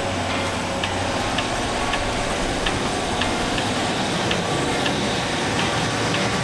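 Class 150 Sprinter diesel multiple unit's underfloor diesel engines running with a steady low hum as the train moves off, with a light ticking about every half second.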